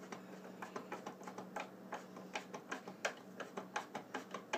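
Light clicking as a screw is turned in by hand with a screwdriver into the tile saw's plastic blade guard. The clicks are irregular at first, then come steadily at about four a second in the second half.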